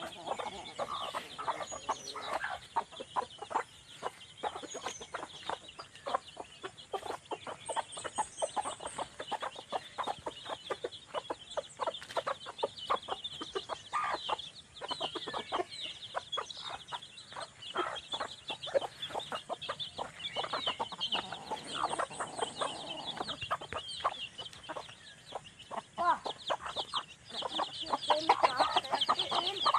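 Chickens clucking in quick, dense strings, with high chick peeps over them that grow louder near the end.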